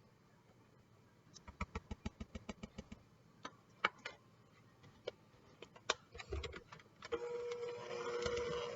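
Rapid clicking of a utensil against a mixing bowl, about eight taps a second, while buttercream frosting is stirred, then a few scattered knocks. About seven seconds in, a small motor starts up and runs with a steady hum.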